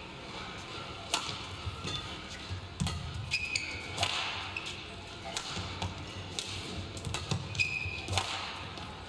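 Badminton rally: rackets striking the shuttlecock every second or so, with the players' shoes squeaking briefly on the court mat and footsteps thudding.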